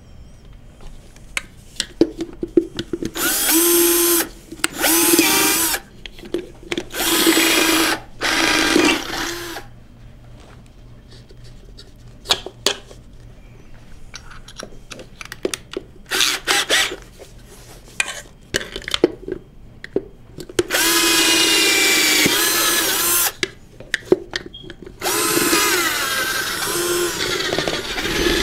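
Cordless drill with a 3/8-inch bit boring out the four cap-screw holes in the base of a prosthetic socket. It runs in several short bursts in the first ten seconds, then in two longer runs near the end, the motor's pitch dipping and recovering as the bit bites. Light handling clicks come in the pause between.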